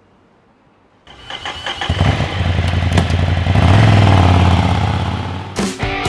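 Motorcycle engine starting about a second in with a quick stutter, then running and revving up. It cuts off suddenly near the end as music starts.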